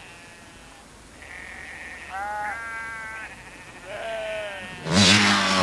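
Sheep bleating, several separate calls. About five seconds in, a loud motorcycle engine cuts in over them.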